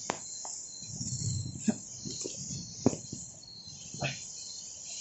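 Crickets and other night insects trilling steadily, with a handful of short clicks and knocks scattered through it.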